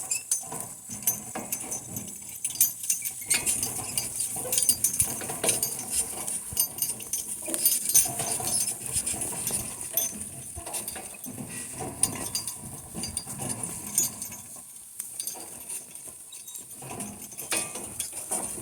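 Donkey-drawn farm wagon on the move: a steady run of irregular clicks, knocks and metal clinks from the wagon and harness.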